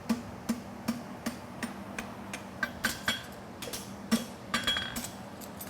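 Farrier's hammer striking a steel horseshoe bar on the anvil, about three blows a second, some of them ringing briefly, as the toe of a hind bevel shoe is forged and tightened. A faint steady low hum runs underneath.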